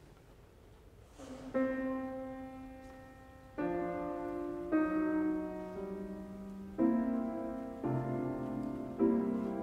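Grand piano playing a slow classical introduction: six separate chords about a second apart, each struck and left to fade, starting about a second and a half in.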